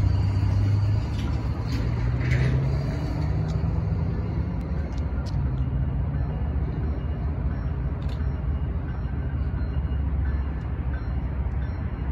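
Diesel locomotive engines of a BNSF train rumbling steadily, the hum stepping up in pitch a second or two in as the throttle opens, then holding.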